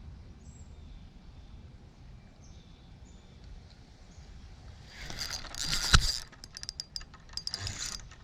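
A low outdoor rumble with a few faint high chirps. About five seconds in comes a loud burst of rustling with a sharp knock, then a quick run of clicks.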